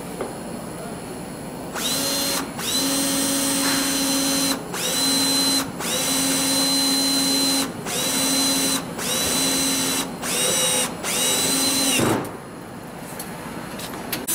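FEIN ABS18 18V cordless drill driving a self-drilling screw into 5 mm steel plate. It runs in about eight short trigger bursts, the motor whining up to speed at each pull with brief stops between, and stops about twelve seconds in.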